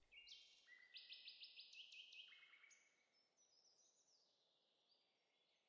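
Faint birdsong: short high chirps and quick trills that die away about halfway through.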